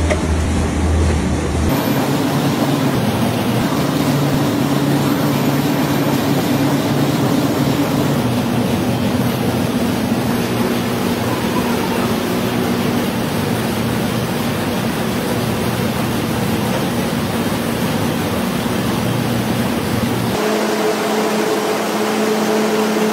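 Match factory machinery running: a loud, steady mechanical noise with a low hum, as the continuous match machine carries its rows of splints. The sound changes abruptly about two seconds in and again near the end.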